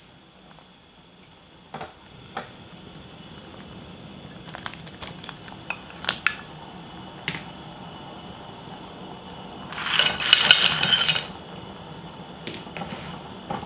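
Spicy skate stew simmering in a stainless steel pot, with scattered clinks of a ceramic bowl and shellfish against the pot as clams and sea squirts are tipped in. A louder clattering burst lasting about a second comes about ten seconds in.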